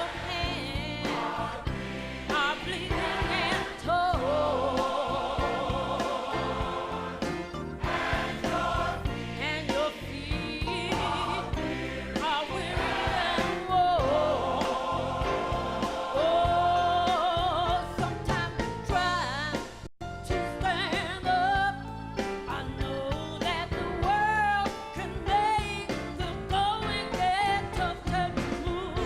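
Gospel choir singing with instrumental band accompaniment, voices held on long notes with vibrato over a steady low backing.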